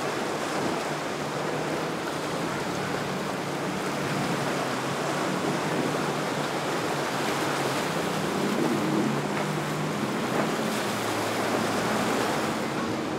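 Powerboat engines running at a low hum that shifts in pitch, over a steady rush of waves and wind.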